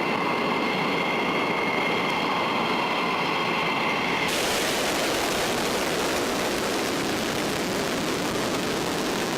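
Military fighter jet engines running with a steady high whine over a heavy rushing noise; about four seconds in the whine gives way abruptly to a louder, even, full-range jet rush.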